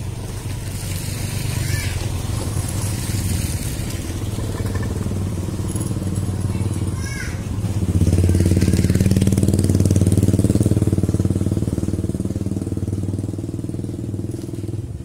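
Small motorcycles running along the road: a steady engine hum that swells loudest from about eight to eleven seconds in, its pitch bending as one passes close, then fades away.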